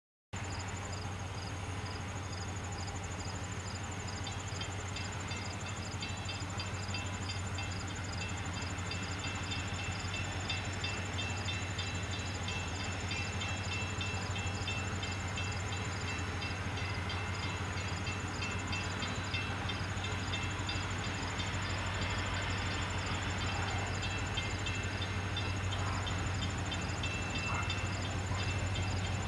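Diesel locomotive engine running with a steady low rumble as a freight train approaches slowly, growing slightly louder toward the end.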